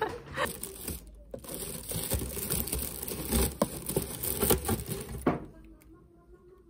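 Honeycomb kraft-paper packing wrap crinkling and rustling as an item is unwrapped from a parcel, with many small crackles, stopping about five seconds in.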